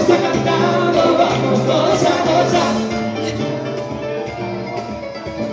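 Live band music: acoustic guitar, keyboard and hand percussion playing a Latin-style dance number.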